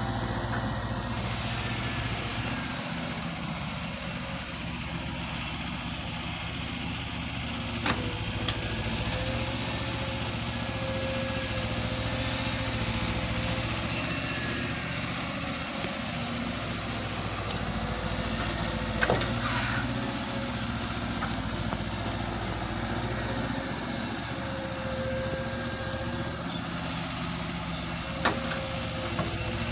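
Volvo long-reach excavator on pontoon tracks running steadily while digging mud, its engine and hydraulics giving a whine that rises and falls in pitch as the boom and bucket move. Three sharp knocks are spread through it.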